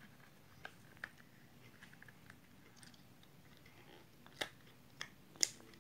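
Faint handling of a hard plastic toy capsule and its plastic wrapping: scattered light clicks and crinkles, with a few sharper clicks in the last couple of seconds.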